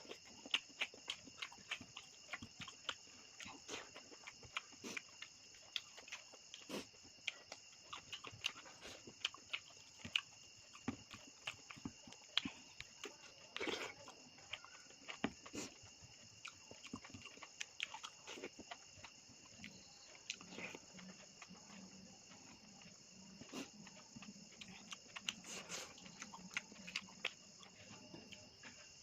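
Close-up chewing and lip-smacking while eating meat: irregular wet clicks and smacks, a few every second. A steady high insect chirring runs underneath.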